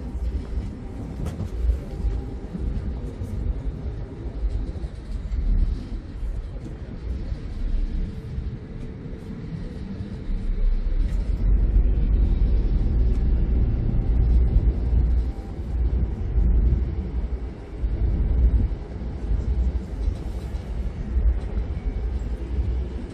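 A harbour ferry under way, heard from its open deck: a low, uneven rumble of engine and wind that grows louder about ten seconds in for several seconds.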